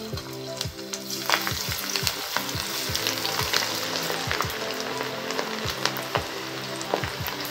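Crumbled ragi (finger millet) pakoda dough dropped into hot oil in a kadai, sizzling with many small crackles as it deep-fries. The sizzle starts at once as the dough hits the oil.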